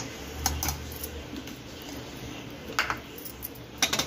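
Metal spoon clinking and scraping against the inside of an aluminium pressure cooker, a few sharp clinks. Near the end comes a louder clatter as the pressure cooker's lid is put on.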